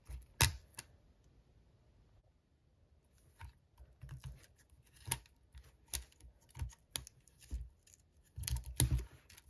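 Plastic-wrapped toy packaging being picked at and its zip tear strip peeled away: two sharp clicks at the start, a quiet stretch, then scattered crinkles and clicks that grow denser and louder near the end.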